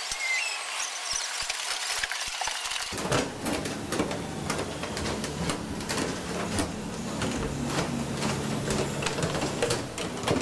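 Aircraft assembly hangar ambience: scattered metallic clicks and knocks of tools and equipment, joined about three seconds in by a steady low machinery hum.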